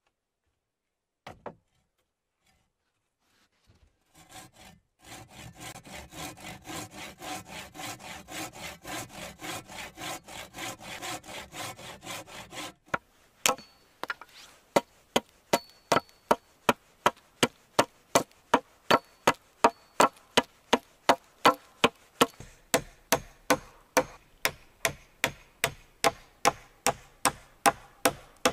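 Hand saw cutting through a log in fast back-and-forth strokes, about three a second. The sawing stops about halfway through and gives way to a long run of sharp blows on wood, about two a second.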